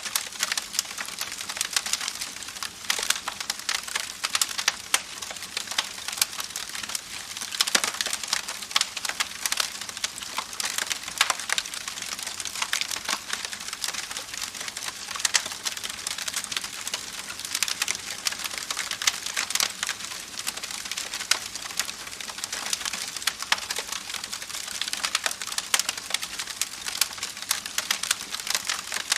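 Campfire crackling: burning wood giving a dense run of small pops and snaps over a steady hiss, with a louder snap every few seconds.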